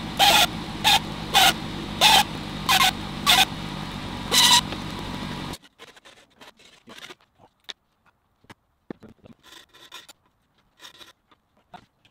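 Dremel rotary tool running with a steady hum and grinding into an aluminium dashboard plate in short loud bursts about every half second to second, opening out a gauge hole. The tool stops about five and a half seconds in, followed by light clicks and taps as the plate is handled.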